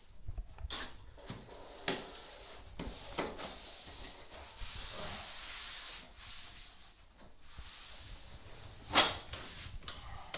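Handling noise from PVC wall panelling: rubbing and a few scattered knocks, the sharpest about nine seconds in.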